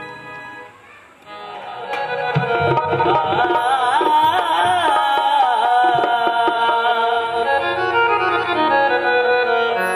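Live qawwali-style devotional music: harmonium tones held at first, then drum strokes coming in about two seconds in and a man singing with a wavering, ornamented melody from about four seconds in.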